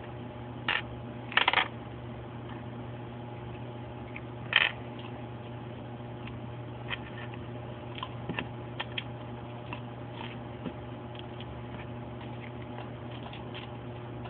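Scattered light clicks and taps of a small screwdriver against the tiny screws and plastic back housing of a Samsung Moment phone as the screws are backed out, over a steady low hum.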